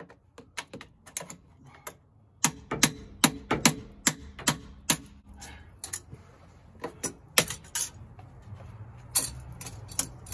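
Sharp metal-on-metal taps and knocks of hand tools working on a baked-on exhaust connection at the turbocharger, coming in irregular clusters. The loudest run of strikes falls between about two and a half and five seconds in.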